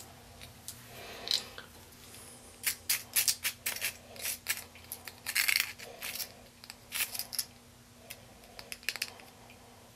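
A quick run of light clicks and clinks from small hard items, lab glassware and utensils, being handled, from about three to seven and a half seconds in, over a faint steady hum.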